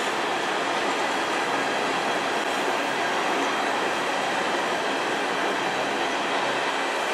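Freight train of covered hopper cars rolling past, a steady noise of steel wheels on rail without distinct clacks.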